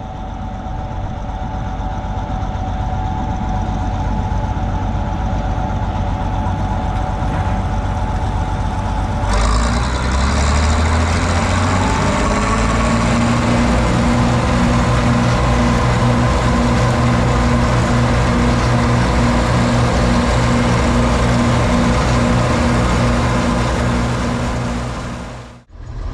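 Heavy diesel farm-machinery engine running steadily. About nine seconds in the sound changes abruptly, and the engine then picks up speed over a few seconds and runs on steadily at higher revs, fading out quickly near the end.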